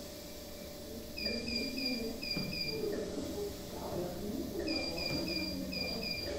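Bedside medical monitor alarm in a neonatal intensive care unit, beeping in short high electronic pips: three quick beeps then two, the pattern starting about a second in and repeating near the end.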